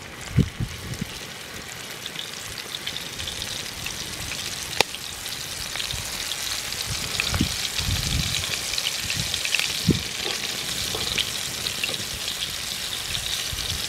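Marinated boneless chicken pieces frying in hot oil in a skillet: a steady sizzle with crackles that grows louder a few seconds in, with a couple of sharp clicks.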